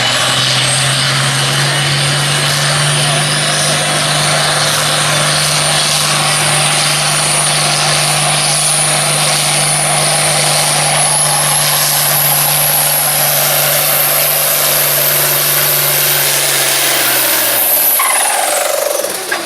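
Pulling farm tractor's diesel engine held at full throttle under load, with a high whistle that climbs slowly. About a second before the end the throttle comes off, and the engine note and the whistle both wind down.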